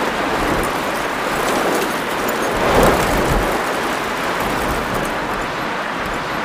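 Steady hiss of a heavy rain and hail storm falling, with faint scattered ticks of impacts and a brief swell about three seconds in.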